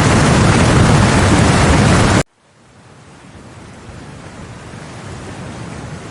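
Loud rushing of a flooded river in spate, which cuts off abruptly about two seconds in, then a quieter rush of water that swells gradually.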